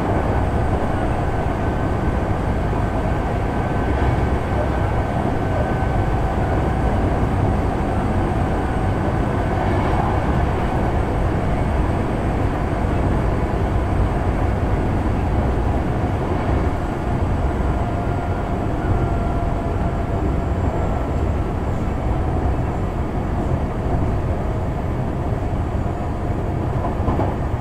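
Kintetsu 6020-series electric train running, heard from on board: a steady low rumble of wheels and running gear on the rail, with faint tones that drift slightly down in pitch.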